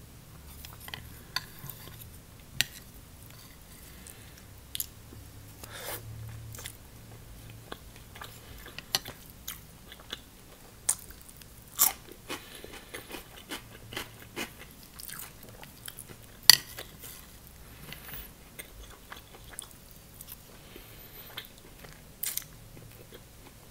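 A woman chewing and eating funchoza glass noodles with chicken and vegetables close to the microphone, with scattered short sharp clicks and crunches; the loudest comes about sixteen seconds in.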